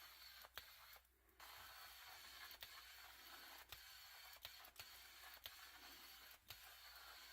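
Near silence: a faint steady hiss with a few faint, scattered clicks.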